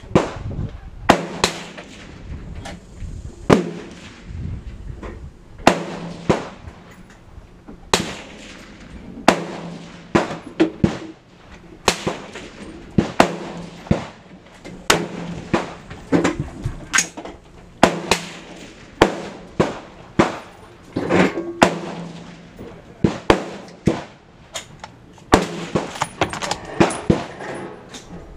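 Gunshots from several guns firing on a shooting range: sharp reports at irregular intervals, about one or two a second, each with a short ringing tail.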